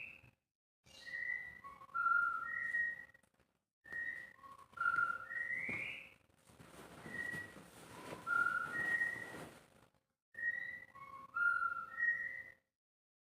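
White-rumped shama (murai batu) singing short phrases of clear whistled notes, some rising, repeated about four times with brief gaps between, over a faint steady hum.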